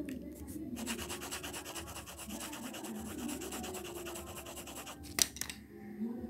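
Graphite pencil shading on drawing paper: rapid, even back-and-forth scratching strokes that stop after about five seconds, followed by a single sharp tap.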